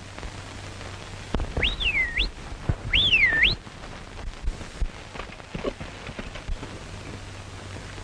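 A man whistling twice to call his horse: two shrill whistles, each swooping up, down and back up, with a few soft knocks afterwards, over the hiss of an old film soundtrack.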